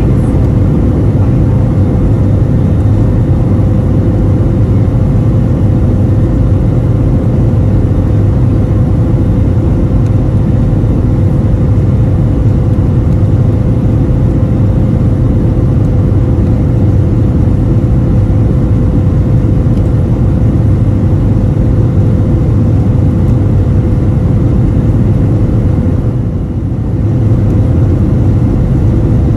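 Airliner jet engines running at high thrust during takeoff and climb, heard inside the passenger cabin: a loud, steady rumble with a steady hum, briefly easing a little near the end.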